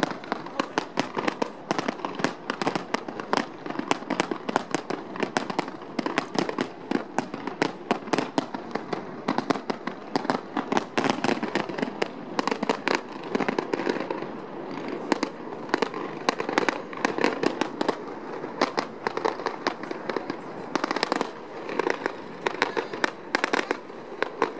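Fireworks display going off: a rapid, overlapping run of sharp bangs, several a second. It thins a little about halfway through, then comes back in a dense cluster near the end.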